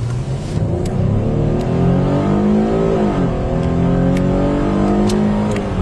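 Car engine revving up under acceleration, its pitch rising, dropping sharply about three seconds in as the transmission shifts up, then climbing again.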